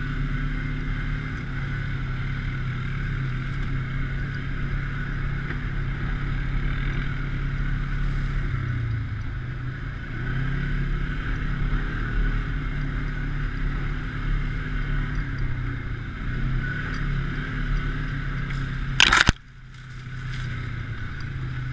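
A vehicle engine running steadily, its pitch drifting slightly up and down. About nineteen seconds in there is one loud, short knock, after which the sound briefly drops away.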